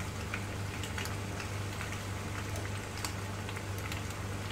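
Sauce-coated pasta sizzling gently in a frying pan on a gas stove, with scattered small pops and crackles over a steady low hum.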